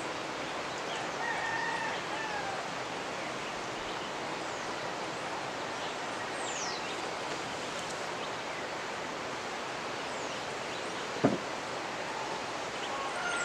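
Steady rushing of a fast-running mountain river, with birds calling over it: a few high, falling whistled calls and some short lower calls. One sharp knock about eleven seconds in.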